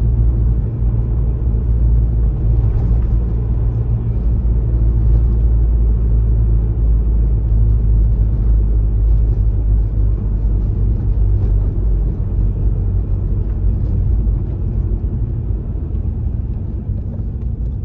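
Steady low rumble of a car driving along a city street, heard from inside the car, easing slightly near the end.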